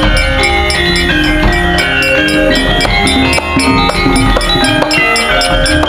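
Javanese gamelan ensemble playing loudly: bronze metallophones ring a fast run of pitched notes over drum strokes and a deep, steady low tone.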